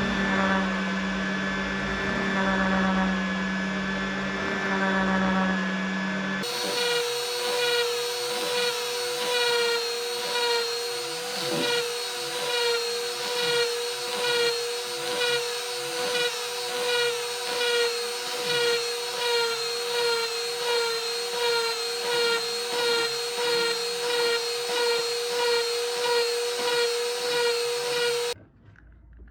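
A small electric power tool running with a steady whine, its sound dipping and recovering rhythmically about one and a half times a second as it works the metal. The tone changes abruptly about six seconds in, and the tool stops suddenly near the end.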